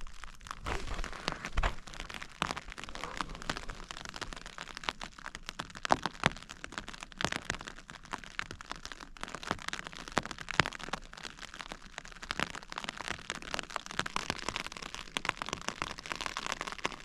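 Rain falling on the eVent fabric of a Rab Ridge Raider hooped bivy, heard from inside: a dense, uneven crackle of drops hitting the shell close overhead. A few low bumps sound near the start.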